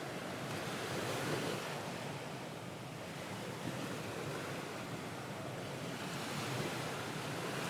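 Ocean waves washing on a shore, a steady surf hiss that swells and eases slowly, with one swell about a second in and another building near the end.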